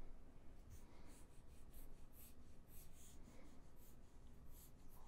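Faint pen strokes sketching on a drawing surface: short, scratchy strokes, two or three a second.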